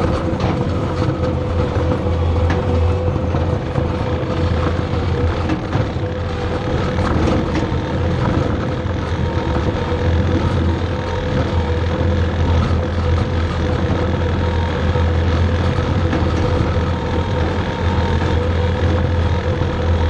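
Skid steer's diesel engine running steadily as the machine drives pushing a scraper pan attachment, with a strong low hum and a few faint rattles and clicks.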